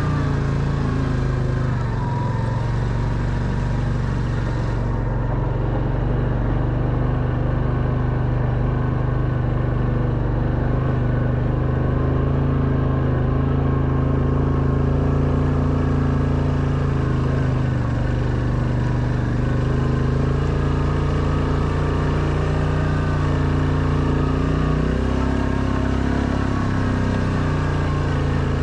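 Quad bike engine running steadily under load as it climbs a gravel track, its note shifting slightly about four seconds before the end.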